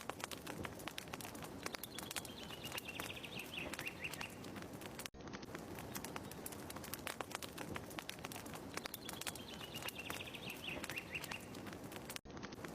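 Wood fire crackling with dense small pops, and a bird singing a short falling trill twice, several seconds apart. The sound cuts out for an instant twice, as where a looped ambience recording restarts.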